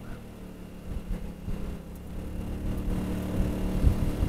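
Honda Helix scooter's single-cylinder engine running on the move, with wind rumbling on the microphone. The engine note grows a little louder after about three seconds.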